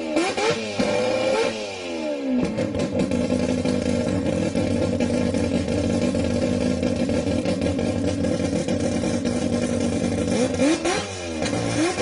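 Mazda 26B four-rotor rotary engine in a Mazda RX2, blipped several times in quick revs at the start, then idling steadily for about eight seconds before being revved twice more near the end.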